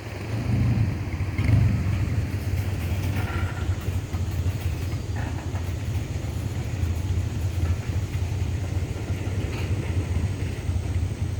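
Freight cars of a long mixed freight train rolling past, a steady low rumble of steel wheels on rail with a few faint clicks.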